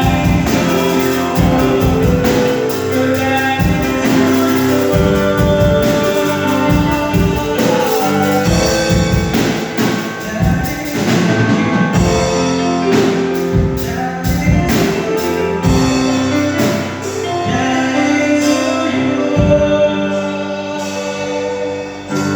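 Gospel music with singing over a band, with drum kit and keyboard.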